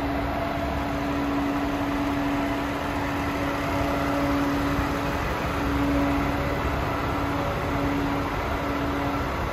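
DAF CF440 tractor unit's Paccar 440 bhp Euro 6 diesel engine idling steadily, a low rumble under a steady hum.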